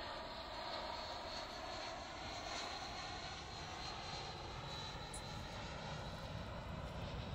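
Jet airliner engines, a steady rush of noise with a faint high whine that sinks slightly in pitch.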